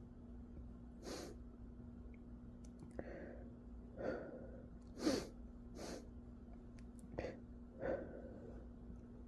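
A person's short, breathy sneezes and sharp breaths, about seven in a row and fairly soft, with the strongest about five seconds in: allergy sneezing.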